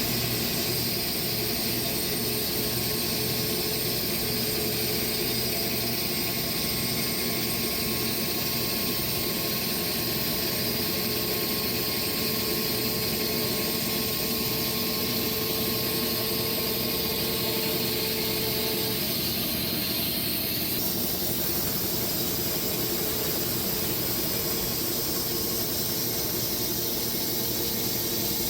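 Sawmill running steadily with its blade cutting through a Bastogne walnut log; a steady machine noise with a high hiss. The tone shifts slightly about two-thirds of the way through.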